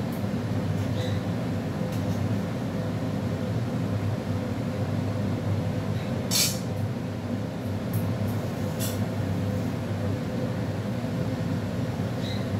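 A steady low hum with a faint even tone runs throughout. A little past halfway there is one sharp metallic clink, the loudest sound, followed by a couple of lighter clinks: a metal serving spoon knocking against steel pans on the stove.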